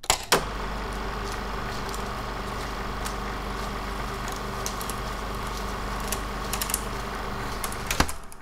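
Old-film projector sound effect: a steady mechanical hum with scattered crackles and clicks, set off by a sharp click just after the start and ending with another about eight seconds in.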